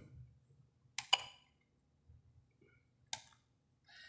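Car radio/DVD head unit front-panel button being pressed: three light clicks, two close together about a second in and one about three seconds in. Near the end a faint buzzy hiss starts.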